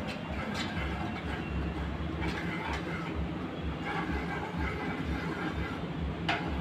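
Garlic sautéing in olive oil in a wok on a gas burner, over a steady low rumble, with a few sharp clinks of the steel ladle against the pan, the sharpest near the end.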